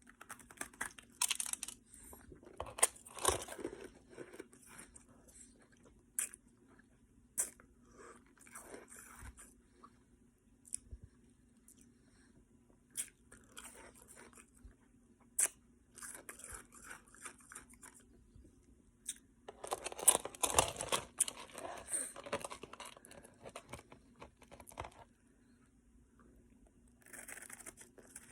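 Ice being bitten and chewed, in irregular bouts of crunching with sharp single cracks between them. The heaviest bouts come near the start and again about two-thirds of the way through.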